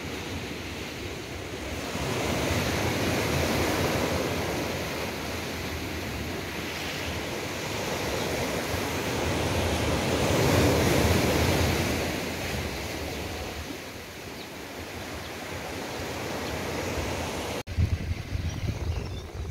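Small waves breaking and washing up a sandy beach, the surf swelling and ebbing every few seconds, with some wind on the microphone. About two seconds before the end the surf cuts off abruptly, leaving a quieter low wind rumble.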